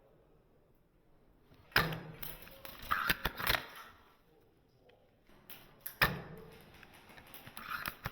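A Cyma 708 spring bolt-action airsoft sniper rifle firing twice, about four seconds apart. Each shot is a sharp crack, followed a second or two later by a quick run of clicks as the bolt is worked to recock.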